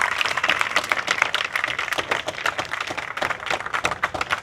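Crowd applauding, many hands clapping irregularly, the applause gradually dying down.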